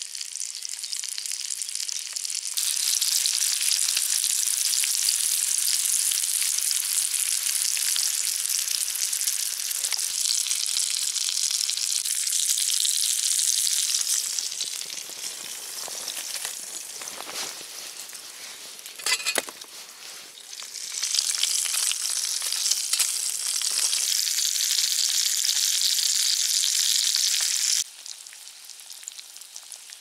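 Sausage and egg frying in a small non-stick pan over a twig fire, a steady high sizzle. The sizzle falls away for several seconds midway, with one sharp crackle, comes back, and cuts off abruptly near the end.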